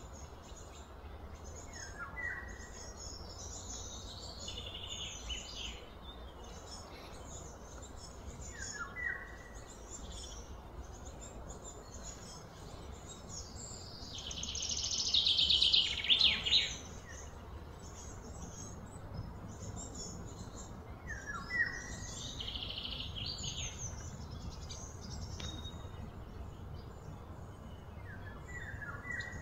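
Wild birds chirping and calling over a steady low background rumble. A short falling call is heard four times, and about halfway through a louder pulsing buzz swells for about two seconds, then stops.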